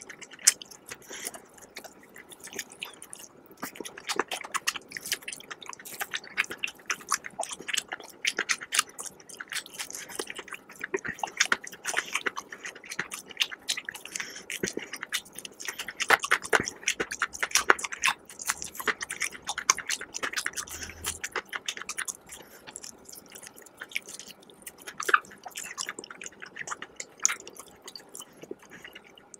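A person biting and chewing crispy Popeyes fried chicken close to the microphone: a dense, irregular run of crackling crunches and chewing clicks.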